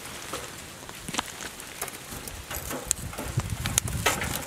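Wood fire crackling and popping in a square brazier, with a few low knocks of logs being shifted about three seconds in.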